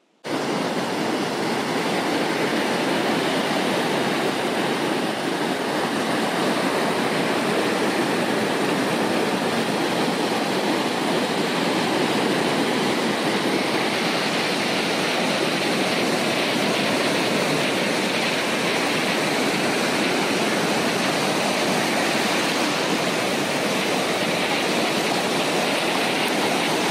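Steady rushing water: an even, unbroken hiss that starts abruptly and holds at one level.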